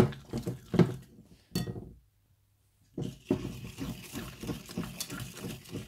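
Wire whisk beating softened butter and sweetened condensed milk by hand in a glass bowl: fast, repeated clinking and scraping of the wires against the glass, broken by about a second of silence a couple of seconds in.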